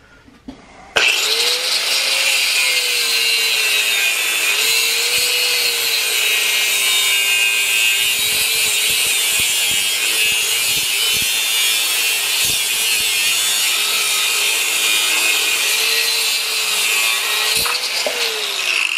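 A 4-inch angle grinder cutting through steel pipe: it switches on about a second in and runs with a harsh grinding noise, its motor pitch sagging and recovering as the wheel bites into the metal. Near the end the pitch starts to fall as it spins down.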